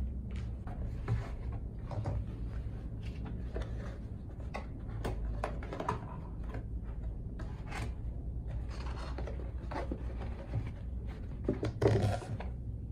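Kraft cardboard mailer box being folded into shape by hand: a run of cardboard creasing, flap taps and scrapes on the table, with a louder flurry of knocks near the end as the box is closed up. A steady low hum runs underneath.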